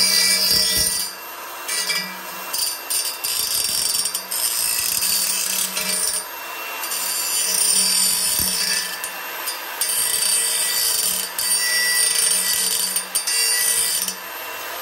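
Cordless angle grinder running, its disc grinding against a steel exhaust pipe and throwing sparks. The grinding grows and fades in spells as the disc bites in and eases off, over the motor's steady whine.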